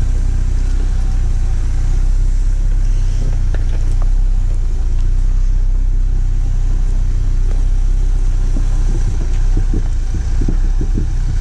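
Jeep Gladiator running on a rutted off-road trail: a steady low rumble from the engine and drivetrain, with no revving.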